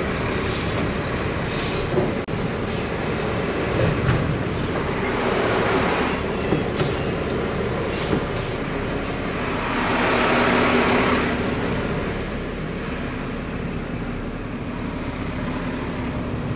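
Mack front-loader garbage truck with a McNeilus body, heard from inside the cab: the diesel engine runs steadily under the lift-arm hydraulics as the emptied dumpster is lowered and the truck moves off. Two hissing surges come about five and ten seconds in, with scattered light clicks and rattles.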